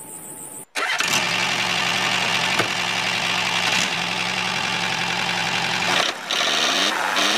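Miniature DIY tractor model running: a steady, engine-like mechanical drone that starts abruptly about a second in, with a brief break about six seconds in.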